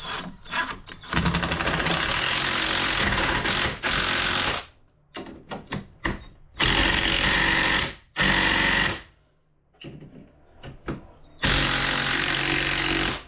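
Ozito cordless impact driver driving 14-gauge screws into a wall panel: four runs of rapid hammering, the first about three seconds long, with short stuttering trigger blips between them.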